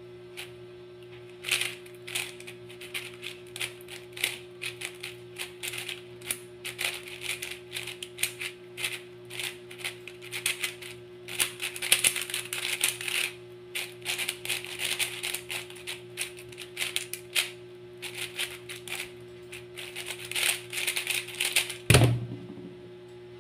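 YJ MGC 4x4 speedcube turned rapidly through a solve: a dense run of plastic clicks and clacks as the layers snap round, with busier flurries along the way. About 22 seconds in the clicking stops with a single thump as the hands slap down on the speedcubing timer to stop it.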